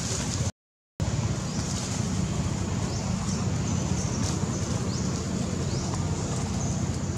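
Steady wind rumble on the microphone, cut by a brief drop to silence about half a second in, with a few short, high, falling chirps scattered through.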